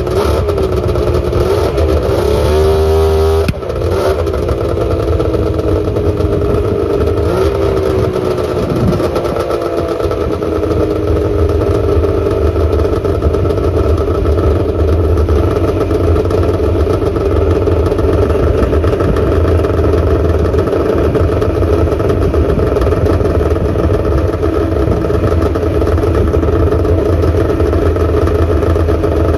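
Arctic Cat ZRT 600 snowmobile's two-stroke triple engine revving in quick blips for the first few seconds, then running steadily with its pitch sinking slightly, warming up after a cold start in sub-zero cold.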